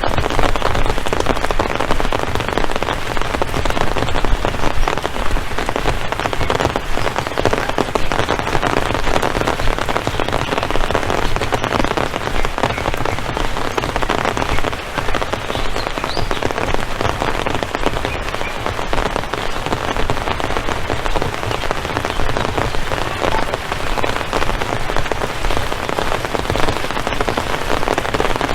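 Steady rain, a dense, even patter of drops that keeps up without a break.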